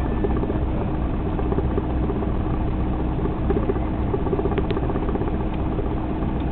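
Cessna 172 floatplane's piston engine and propeller idling steadily, heard from inside the cockpit.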